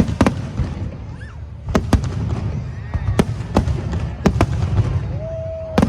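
Fireworks display: about nine sharp bangs of bursting shells at irregular intervals, over a continuous low rumble.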